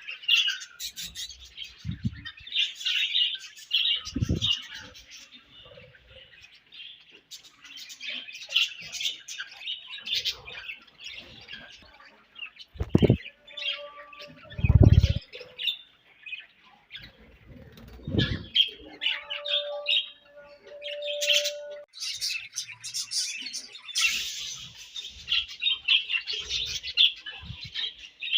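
A group of budgerigars chirping and chattering continuously in quick, high twitters. A few short low thumps come through, the loudest about halfway.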